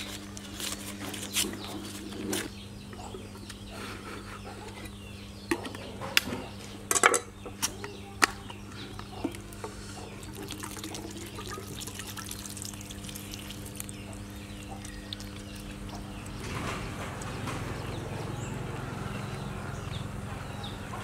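Milky white liquid poured in a thin stream from a small container over a bowl of raw grubs. Scattered clicks and taps of the container being handled come in the first half, and a steadier pouring sound builds near the end.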